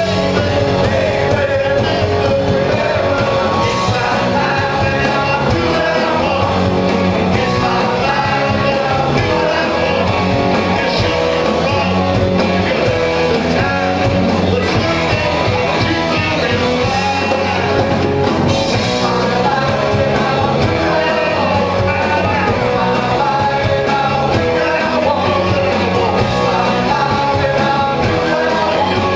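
Live rock band playing at a steady, loud level: a male singer sings into a microphone over electric and acoustic guitars.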